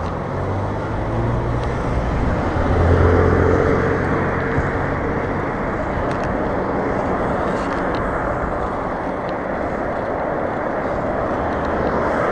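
Wind rushing over the camera microphone of a moving bicycle, with a passing car's engine humming loudest about two to four seconds in.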